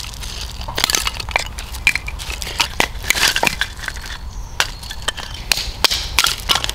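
Firewood being split by hand into thin kindling: an irregular run of sharp wooden knocks and cracks as the sticks are struck and split apart.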